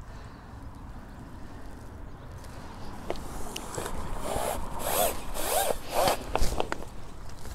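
Water splashing and streaming off a landing net as a skimmer bream is netted and lifted from the lake, followed by a run of rasping strokes about two a second and a thump near the end.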